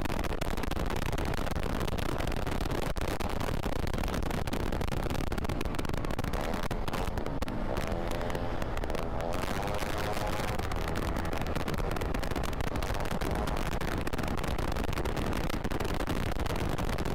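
Steady rush of wind buffeting the microphone with the Kymco KRV 180 scooter running underneath, as heard while riding at speed. About halfway through, a wavering pitched sound rises over it for a couple of seconds.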